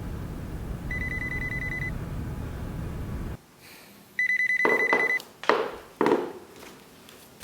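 Electronic telephone ringer trilling twice, each ring about a second long. The first ring sounds over a steady low rumble that cuts off sharply about three and a half seconds in. The second ring sounds in a quiet room and is followed by a few knocks.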